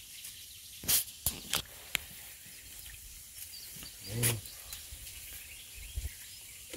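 Quiet pond-side background with a few sharp clicks between one and two seconds in as a fishing rod and a reel with a broken handle are handled, a short voice about four seconds in, and a low thump about six seconds in.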